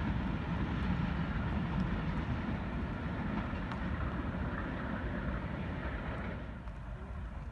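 Passenger train's coaches rolling away along the track: a steady low rumble that slowly fades as the train recedes, its higher part dropping away near the end.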